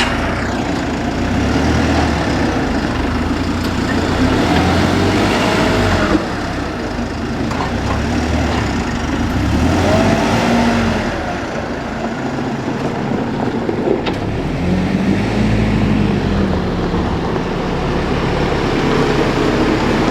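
Vehicle engine running under load while driving, its pitch rising and falling repeatedly as it is revved.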